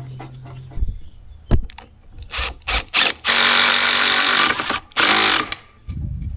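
Power drill driving screws into wood: a few short bursts, then a longer run of about a second and a half and another brief run, with a couple of knocks before them.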